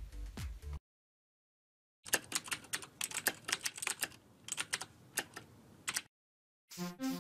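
Computer keyboard typing: a fast run of key clicks lasting about four seconds, with short silences either side. Music starts near the end.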